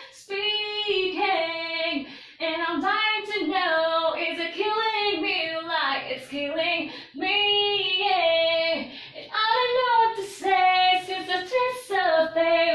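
A young female voice singing a melody unaccompanied, in held, gliding phrases with short breaks for breath.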